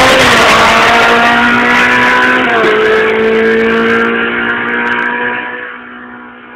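Race car engine pulling away hard at a high, steady note, changing gear once about two and a half seconds in, then fading into the distance near the end.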